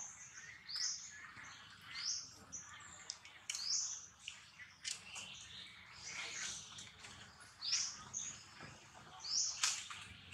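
A bird chirping over and over, short high calls about every one to two seconds.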